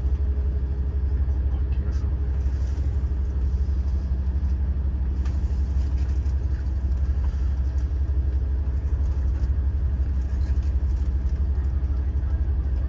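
Steady low rumble and hum of a diesel railcar's engine idling, heard inside the passenger cabin while the train stands still after an emergency stop.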